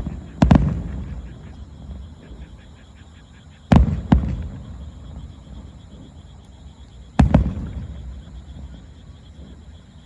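Aerial firework shells bursting at a distance: a double boom about half a second in, two more around four seconds, and another near seven seconds, each followed by a low rolling echo that dies away.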